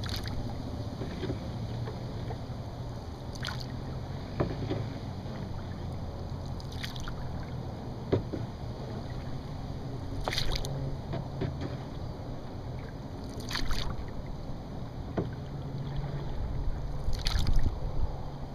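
Canoe paddle strokes swishing through the water about every three and a half seconds, over a steady low rumble of wind on the microphone, with a few short sharp knocks.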